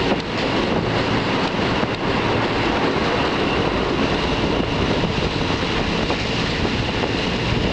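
Passenger train running along the track, heard from an open carriage window: a steady rumble of wheels on the rails.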